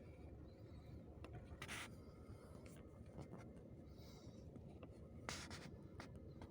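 Faint steering-column knocks on a 2007 Renault Megane II: two short scraping knocks about three and a half seconds apart with a few light clicks, over a low steady rumble. The knock comes from the steering column itself, not from the intermediate shaft's universal joints.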